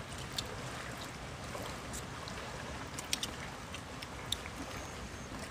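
Steady outdoor background noise with a few faint, short clicks and taps scattered through it.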